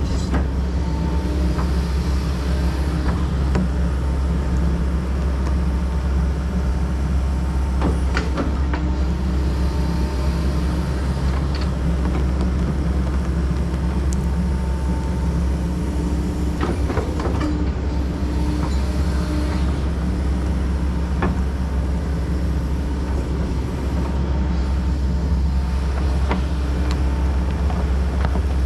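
Kobelco SK140 excavator's diesel engine running steadily with a deep drone and a few scattered knocks and clatters.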